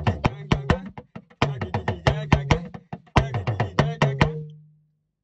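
Hourglass talking drum struck with a curved stick in a quick, uneven run of strokes, about four to five a second, the drum's low tone stepping up and down in pitch from stroke to stroke. The playing stops near the end, the last tone ringing on briefly.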